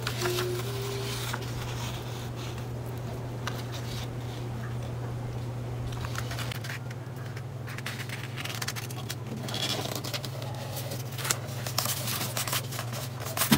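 A sheet of colored paper rustling and crackling as it is folded in half and pressed flat by hand on a tabletop, busiest near the start and again in the last few seconds. A steady low hum runs underneath.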